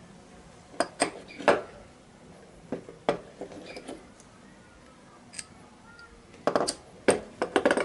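Steel lathe parts, among them a machined tailstock clamp lever, clinking and knocking on a workbench as they are handled. There are several groups of sharp metal clinks, the busiest near the end.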